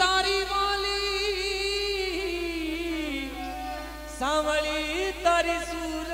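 Rajasthani folk song sung live by a male singer: long, wavering, ornamented held notes, with a new phrase starting about four seconds in, over a steady keyboard drone.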